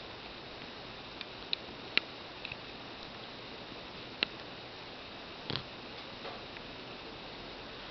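A sleeping Persian cat's nasal breathing noises: a few brief, irregular squeaks and clicks, with one slightly longer, fuller sound about five and a half seconds in, over a steady hiss.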